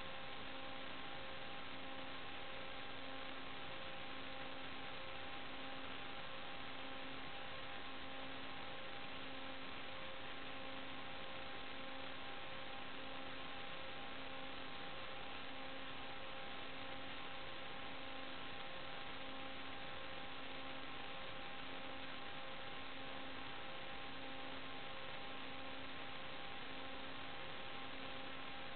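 Steady electronic hiss with a hum: several thin steady tones and a low tone that pulses on and off at a steady rate, with no change throughout. This is interference noise on the audio track of an analog FPV video recording.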